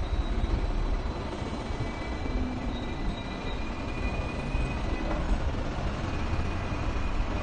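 Hong Kong double-decker tram running along its tracks, heard on board: a steady rumble with a faint high whine.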